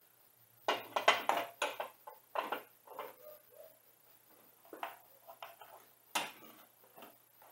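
Hand tools clicking and clinking on metal as the thermostat housing bolts are tightened a little at a time, in irregular bursts of sharp clicks.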